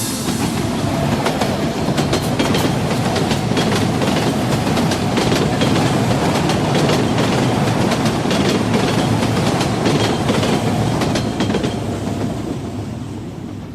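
Railway train wheels clattering over the rail joints with a steady rumble, fading out near the end.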